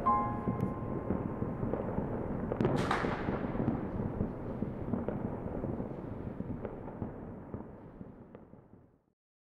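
Firecrackers and fireworks going off thickly, a continuous crackle of many overlapping bangs with one louder, sharper burst about three seconds in. The sound fades away to silence near the end.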